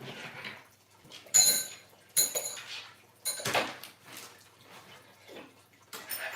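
Small metal hardware clinking and knocking: three sharp metallic clinks with a brief ring, from screws and monitor-mount parts being handled during assembly.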